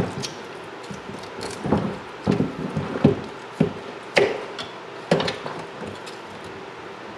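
A knife scraping and cutting meat and gristle off a part-boiled bear skull, with the skull knocking against the sink. It comes as a string of short, uneven scrapes and knocks.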